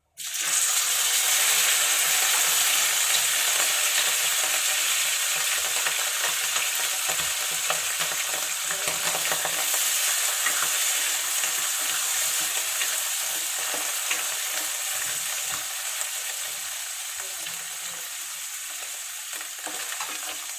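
Canned mushrooms, still wet with their liquid, tipped into hot olive oil and browned garlic: a sudden loud sizzle and spatter that slowly dies down. The undrained mushroom water is what makes the oil spit.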